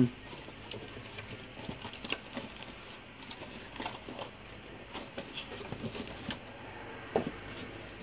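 Packaging being handled and unwrapped: light rustling with scattered small clicks and taps, and one louder tap about seven seconds in.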